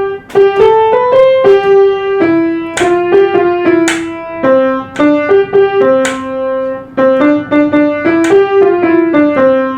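Piano-voiced keyboard playing a simple children's-song melody, one clear note after another with some held notes, as an instrumental interlude between sung verses.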